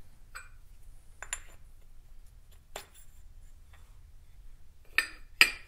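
Small metal tools and parts being handled and set down: a few light clinks, then two sharper clanks in quick succession near the end.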